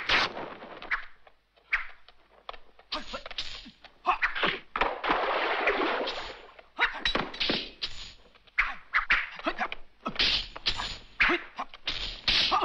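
Martial arts film fight sound effects: a quick, irregular string of sword swishes and sharp hits, with a longer rushing sound about five seconds in.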